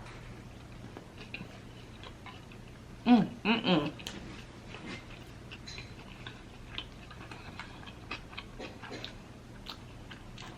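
A person chewing a burger, with scattered small wet mouth clicks. Two short voiced sounds, just over three seconds in, are louder than the chewing.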